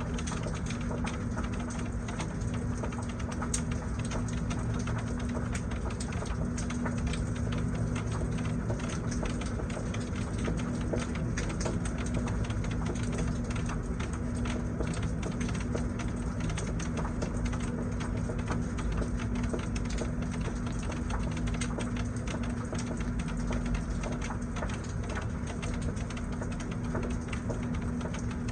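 Steady rain shower, many small drops pattering without a break, over a constant low hum.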